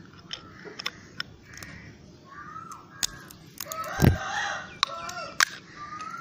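Sharp clicks and snaps of a white plastic phone-charger case being pried apart with a thin metal tool, with the loudest snap about four seconds in as the case comes open. Birds call several times in the background.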